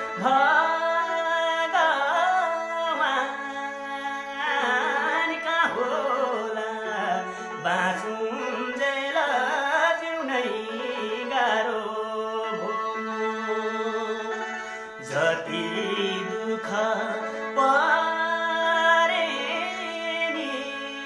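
A Nepali Teej folk song sung live: one voice carrying a bending, ornamented melody over a steady instrumental drone.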